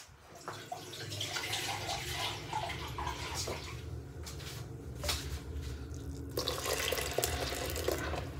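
Water being poured from a plastic jug into an aluminium pressure cooker, a steady splashing that eases for a moment a little past halfway and then picks up again.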